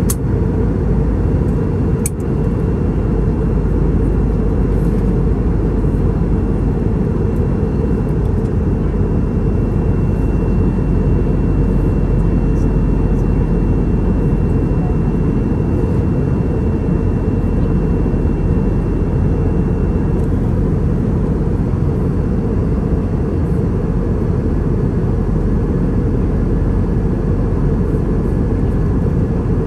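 Airliner cabin noise in flight: a loud, steady roar of engines and airflow, heaviest in the low end, with a faint thin whine over it for most of the time. A single sharp click about two seconds in.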